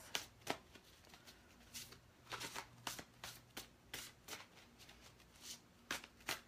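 A deck of fairy tarot cards being shuffled by hand: faint, irregular light clicks and flicks of the cards.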